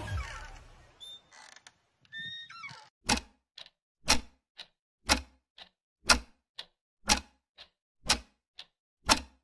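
A wall clock ticking, starting about three seconds in: one sharp tick every second, each followed half a second later by a softer one. Before the ticking, a swell fades out and a few short high tones sound.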